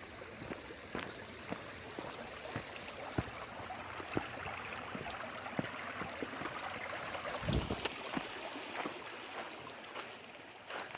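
Footsteps along an old railway trackbed at a steady walking pace, about two a second, over a steady rush of running water that swells through the middle. A single dull thump about seven and a half seconds in.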